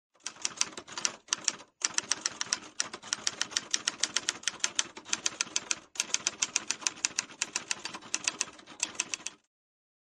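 Manual typewriter keys typing in quick runs, about six keystrokes a second, with a few short pauses, one of them about six seconds in; the typing stops shortly before the end.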